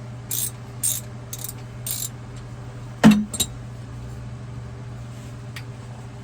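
Hand tools working a metal pipe fitting open: four short scraping clicks about half a second apart, then a sharp metallic clank about three seconds in with a smaller knock just after.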